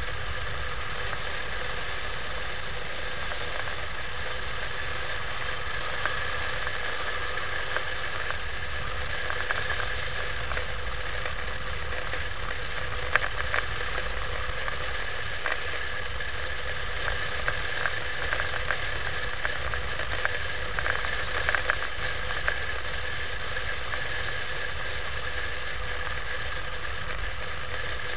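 Motorcycle cruising at a steady speed, its engine running with wind and road noise, heard from a camera mounted on the bike. Short rattling clicks come and go, most of them in the middle stretch.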